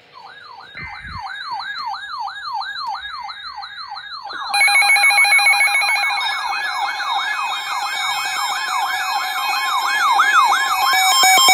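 Electronic emergency-alert siren tone sounding for a snow squall warning: a fast yelping sweep repeating about three times a second. About four and a half seconds in, a second, louder electronic alarm tone with steady beeping pitches joins it.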